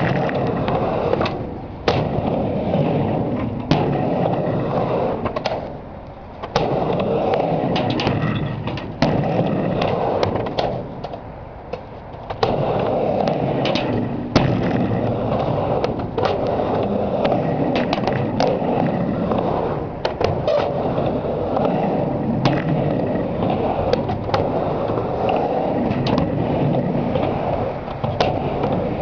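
Skateboard riding back and forth on a mini ramp: the wheels make a steady rolling rumble, broken every second or two by sharp clacks as the trucks and tail strike the ramp's edge, with two brief quieter lulls.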